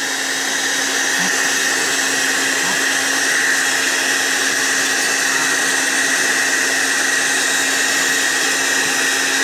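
Steady whirring of a fan or small electric motor: an even rushing noise with a fixed low hum and a higher whine, growing slightly louder over the first few seconds.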